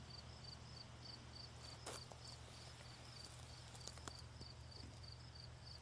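Near silence: faint insect chirping repeating several times a second over a low steady hum, with two small clicks.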